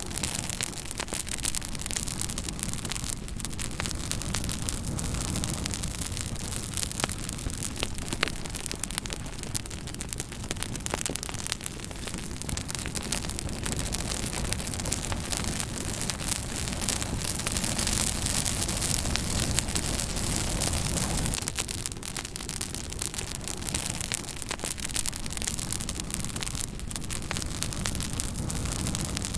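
Fire crackling: a steady hiss and low rumble dotted with many quick pops and snaps, swelling slightly a little past halfway.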